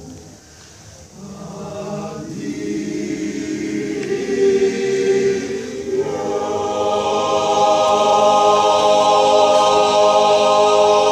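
Male Alpini choir singing unaccompanied, entering softly and swelling to a loud final chord that is held for the last several seconds.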